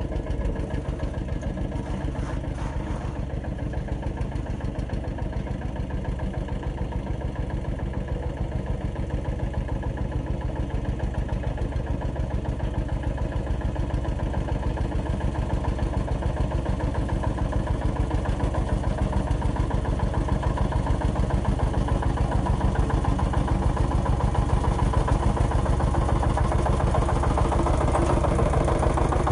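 Single-cylinder diesel engine of a two-wheel walking tractor running under load with a fast, even chugging as it works a muddy rice paddy, growing louder toward the end.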